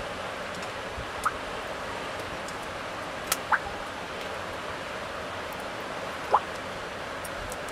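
Lamb liver, heart and kidney pieces sizzling in a wire grill basket over hot charcoal: a steady hiss with four sharp pops.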